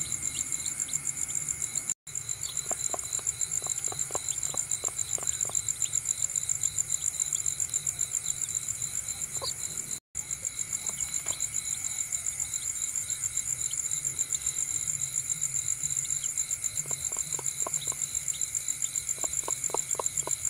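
Crickets chirping steadily in a fast, even pulse, with two runs of quick light taps from chicks pecking feed off a dirt floor. The sound drops out for an instant twice.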